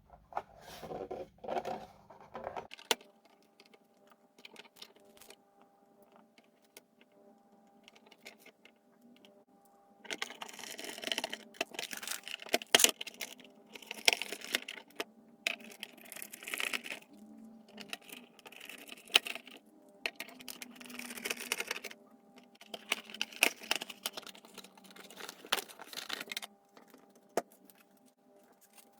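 Small hard objects being handled, with clicks, clatter and scraping in bursts and a few sharp knocks, loudest through the middle, over a faint steady hum.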